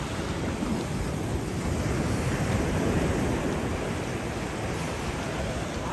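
Low surf breaking and washing up over wet sand, a steady rush that swells a little in the middle.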